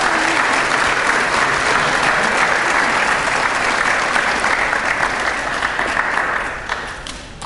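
Audience applauding steadily, then fading out near the end.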